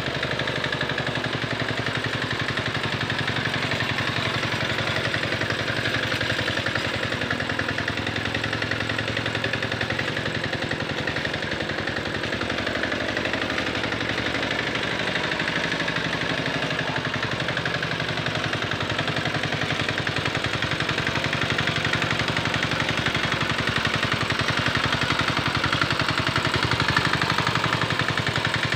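Small engine of a Quick Capung Metal two-wheel hand tractor running steadily with a fast, even chug while it pulls a harrow through paddy mud; it gets slightly louder near the end.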